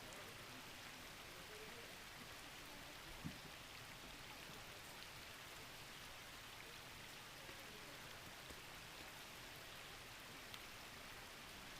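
Faint, steady hiss of rushing water from a mountain stream, with one soft low thump about three seconds in.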